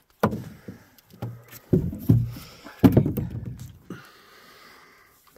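A few hollow knocks and thumps in a small open boat, about four in the first three seconds, the loudest about three seconds in.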